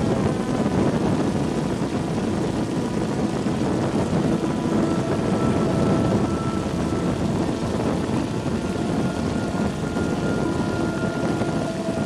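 Small propeller aircraft in flight: a steady rush of propeller and air, with faint steady motor tones that shift pitch a little partway through.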